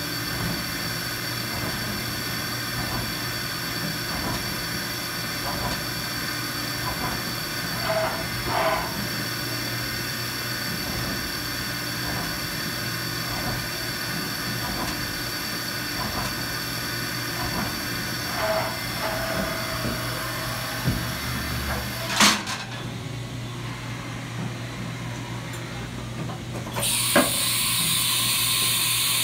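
1998 Haas HS-1RP CNC horizontal mill running, its spindle giving a steady whine with faint ticks about once a second. A sharp clunk comes about 22 seconds in, and a loud steady hiss sets in near the end.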